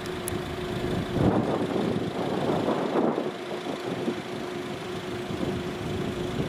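An engine running steadily with a constant hum. A louder rushing noise swells between about one and three seconds in.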